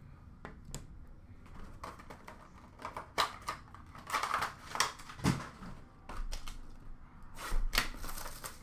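Hands handling boxes of trading cards and their packaging on a counter: a string of light clicks, taps and rustles, busiest around the middle and again near the end.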